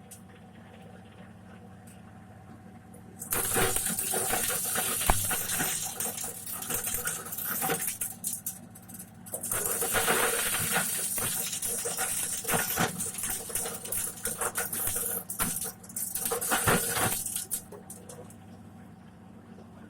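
Corn sheller machine running with a steady hum. From about three seconds in, corn is fed through and kernels rattle against the metal in dense clicking, easing briefly near the middle. The clicking falls away to just the hum near the end.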